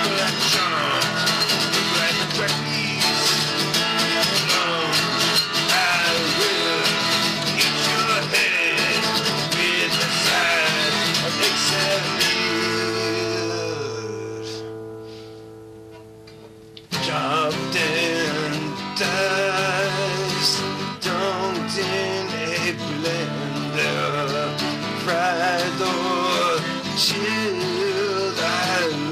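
Epiphone acoustic guitar strummed while a man sings a rock song. About twelve seconds in, the playing thins to a held note and chord that die away, and guitar and voice come back in suddenly about five seconds later.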